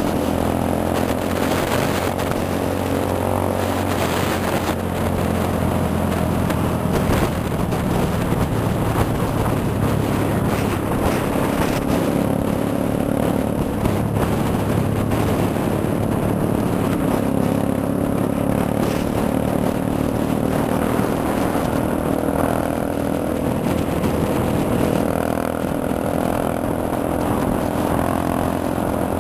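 Motorcycle engine running steadily while cruising, heard from on the bike.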